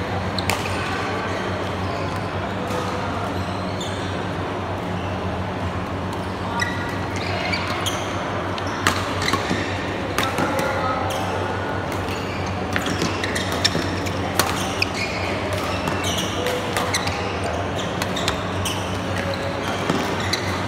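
Badminton rally: rackets strike the shuttlecock in sharp, irregular cracks, and shoes squeak briefly now and then on the court mat. A steady low hum runs underneath.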